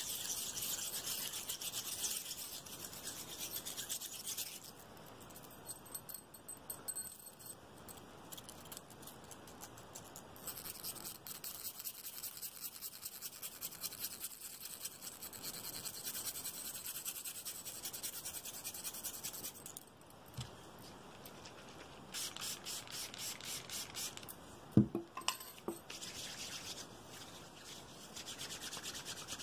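Fast ASMR hand sounds close to the microphone: palms and fingers rubbing and scratching in rapid strokes, coming and going in stretches, with one sharp knock near the end.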